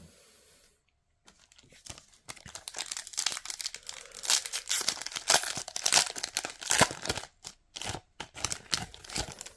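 Trading card booster pack wrapper crinkling and tearing open, with a dense run of crackles that starts about a second in.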